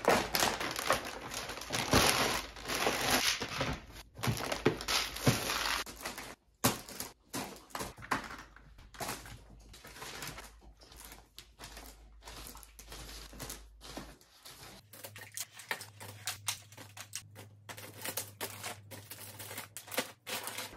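Plastic bags and wrappers crinkling and rustling as things are packed into a suitcase, with many short clicks and knocks. The rustling is densest in the first few seconds, then thins to scattered handling sounds.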